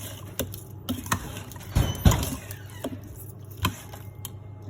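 Kitchen handling noises while seasoning chicken: scattered light clicks and knocks, with a louder thump about two seconds in.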